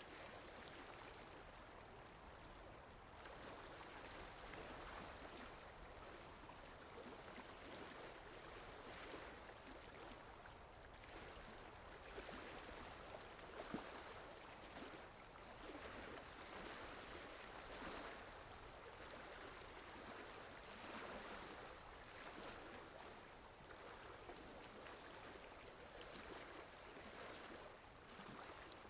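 Soft, steady rain, an even hiss that swells and eases a little, with one brief tap about halfway through.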